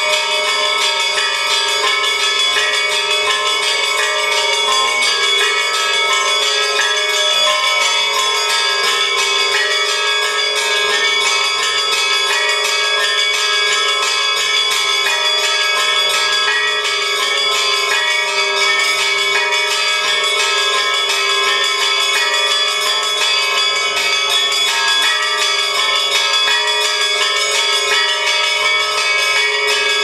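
Orthodox church bells rung by a bell ringer pulling the clapper ropes by hand, several bells sounding together in a fast peal that carries on without a break.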